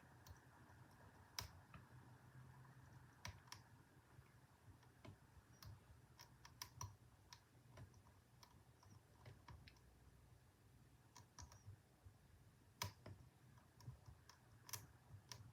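Faint, irregular clicks and light scratches of a lock pick working the pin stacks inside a Federal 95 padlock's plug, with a few sharper clicks standing out.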